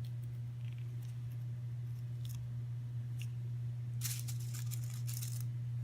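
Straight pins being pushed through a strip of balsa wood into cardboard: a few faint clicks, then a short run of crackly crunching about four seconds in, over a steady low electrical hum.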